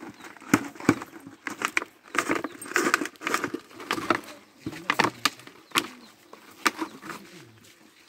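Large plastic bottle handled on dry ground, giving irregular sharp clicks and crackles of the plastic, several a second, that thin out near the end.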